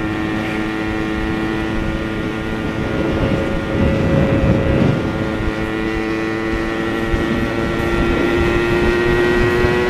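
Yamaha RX-King's single-cylinder two-stroke engine running at a steady cruise, its pitch creeping slowly upward through the second half. Wind rush on the microphone swells about four seconds in.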